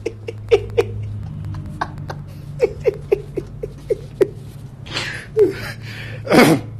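A man's stifled giggling behind his hand: a string of short, squeaky laugh bursts at uneven spacing, with a louder breathy laugh near the end, over a steady low hum.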